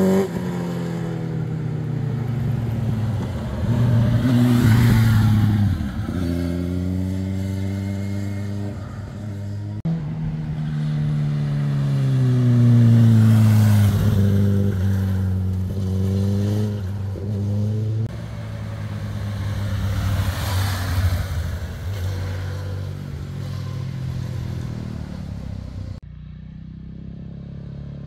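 Sport motorcycles, among them a red Honda sportbike, running through a hairpin bend: engine pitch falls repeatedly as the riders slow and shift down for the bend, then rises as they accelerate away. Near the end the sound drops off suddenly and another motorcycle is heard approaching.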